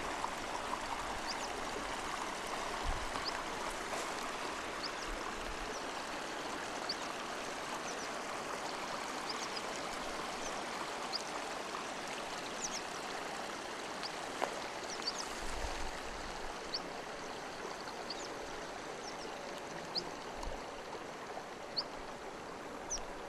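A mountain stream rushing steadily over rocks, with short high chirps now and then and a few low bumps.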